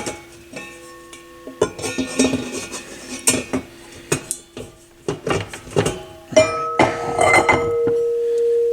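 Repeated small metallic clicks and clinks of a screwdriver turning the speed-adjustment trimmer pot on a Pioneer PL-610 turntable's control board. Underneath runs a steady low tone, joined by a second, higher steady tone about six seconds in.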